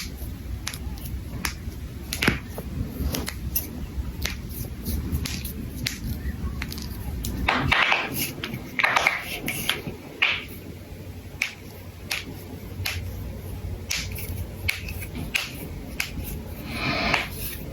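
Knuckles being cracked: an irregular series of sharp cracks and pops, with a few brief louder noisy patches in between.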